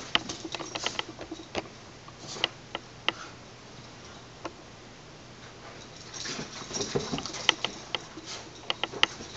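Boston terrier scampering and pouncing at a plush toy on carpet: a quick patter of paws with scattered sharp clicks, busy at the start, quieter in the middle, and busy again from about six seconds in.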